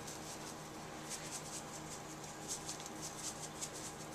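Faint, scattered scratchy ticks as ground pepper is sprinkled by hand over raw chicken skin, over a low steady hum.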